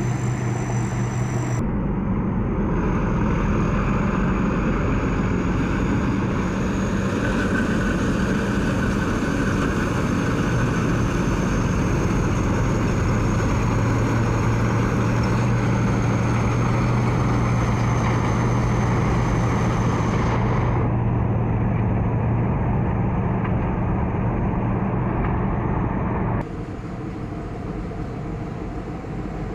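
Combine harvester running steadily: a deep engine drone with a thin high whine over it. The sound shifts abruptly a couple of times and drops somewhat in level near the end.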